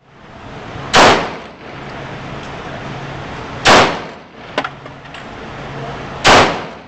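Three single shots from a Sig Sauer Scorpion pistol, evenly spaced about two and a half seconds apart, each a sharp loud report with a short ring-out. A fainter sharp crack comes between the second and third shots, over a steady low hum.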